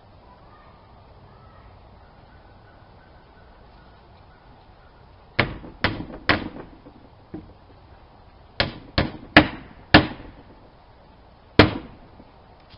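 Hammer blows on wood in short groups: three strikes, a light tap, four more strikes in quick succession, then a single strike near the end.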